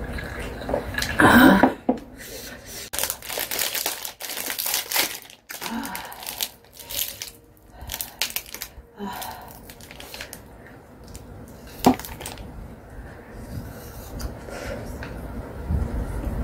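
A snack wrapper being torn open and crinkled by hand, in bursts of tearing and rustling through the middle. A short loud knock comes about a second and a half in.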